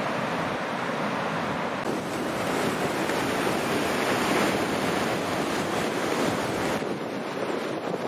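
Ocean surf breaking and washing ashore, with wind buffeting the microphone. The sound changes abruptly about two seconds in and again near the end.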